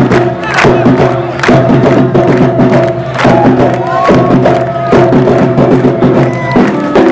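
Samba batería drums and percussion playing carnival samba music with a strong beat about twice a second, a melody carried over the top.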